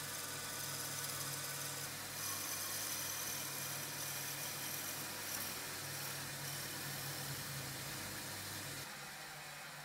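A woodworking power tool's electric motor running steadily with a low hum and a constant hiss. The hum drops away near the end.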